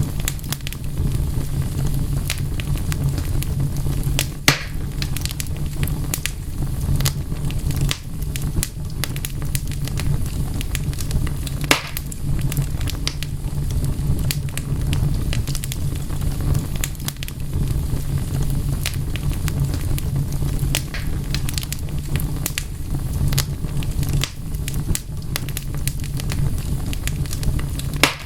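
Wood fire crackling, with a steady low rumble under a constant scatter of small snaps and a few sharper pops, the loudest about four and a half and twelve seconds in.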